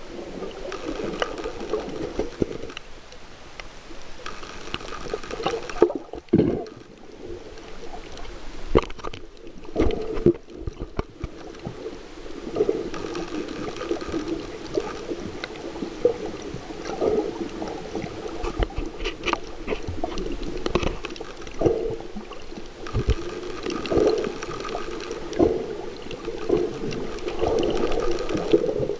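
Muffled underwater sound from a camera held below the surface: water sloshing and gurgling in repeated swells, with a few sharp knocks.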